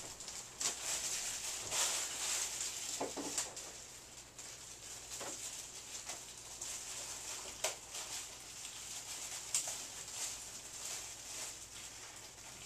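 Faint rustling and scattered light knocks and clicks as packing material and air-conditioner parts are handled and set aside.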